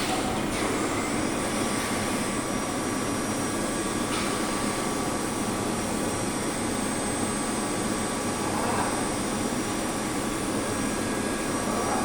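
CNC milling machine running steadily, a continuous mechanical hum with a faint steady whine.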